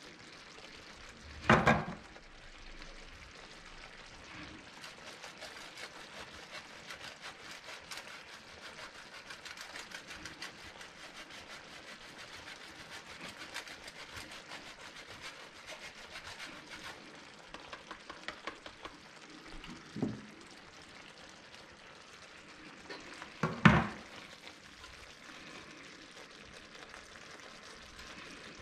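Cream sauce with prawns simmering in a frying pan, with parmesan grated by hand over it: a long run of fast small scraping strokes in the middle. A few sharp knocks stand out, the loudest shortly after the start and about three quarters through.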